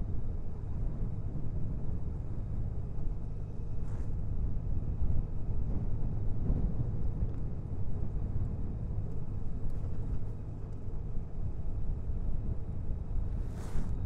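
2014 Honda Valkyrie's flat-six engine running steadily while riding at an easy cruise, a low rumble mixed with wind buffeting the microphone.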